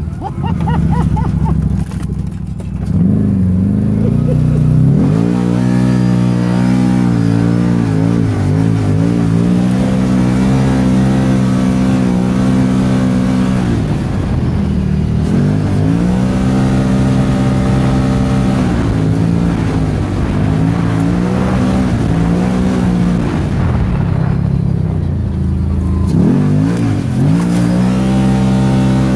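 Stock Can-Am Maverick side-by-side's engine heard from on board while driving hard on a dirt track, the revs climbing and falling again and again as it accelerates and lets off.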